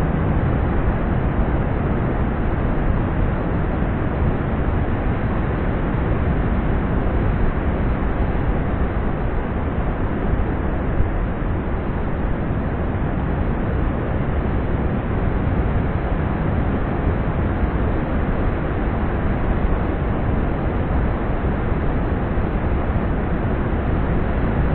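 Steady roar of heavy ocean surf breaking, mixed with wind rushing on the microphone: an even, unbroken rushing noise.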